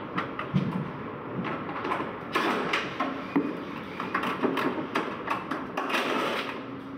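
Hand tools clicking, knocking and scraping on a small metal wall-mounted electrical box as it is taken apart, in irregular short sounds over a faint steady low hum.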